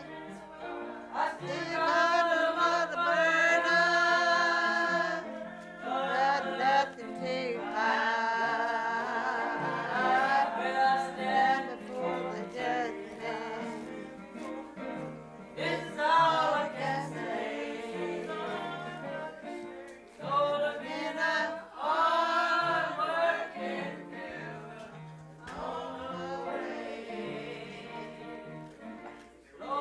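Gospel hymn sung by several voices together, in phrases, over a low bass line that steps from note to note.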